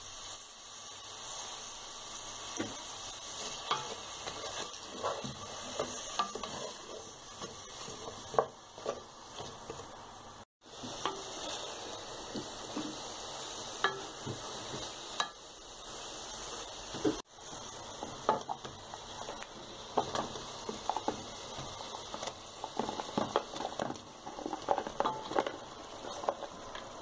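Sliced onions sizzling in hot oil in a metal pot, stirred with a wooden spoon that scrapes and taps against the pot, giving a steady hiss with scattered clicks.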